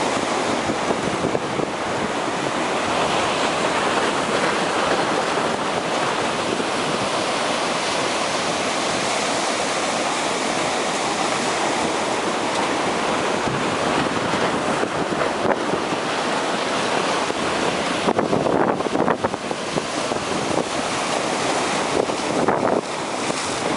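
Ocean surf from a typhoon swell breaking continuously on the beach, a steady wash of wave noise. Wind buffets the microphone, growing gusty and uneven about three-quarters of the way through.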